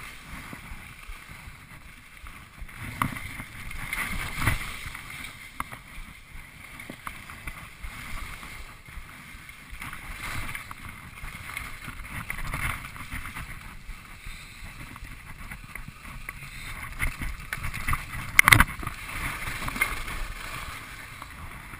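Skis sliding and carving over snow, heard through a GoPro camera: a rushing scrape that rises and falls with the turns. One sharp knock about eighteen seconds in.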